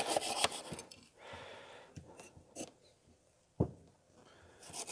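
Wire brush scrubbing rust off a Coleman lantern's metal frame in quick, even strokes. The scrubbing stops about a second in, there are a few light clicks and one sharp knock, and it starts again near the end.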